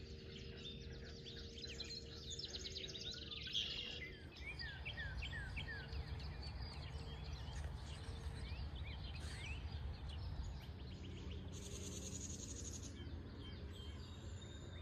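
Birds chirping and singing, many short calls, busiest in the first half, over a faint steady low rumble of outdoor background noise.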